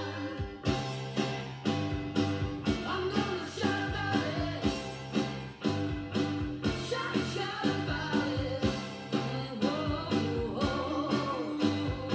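A 1985 7-inch vinyl single playing on a turntable: a pop-rock song with singing over a steady drum beat of about two beats a second.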